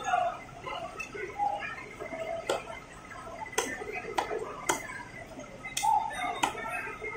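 A large knife chopping through tuna head into a wooden stump chopping block: about six sharp chops at an uneven pace, starting a couple of seconds in.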